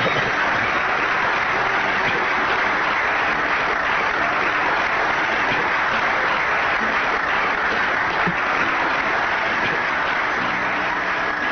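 An audience applauding steadily, with music starting to come in near the end.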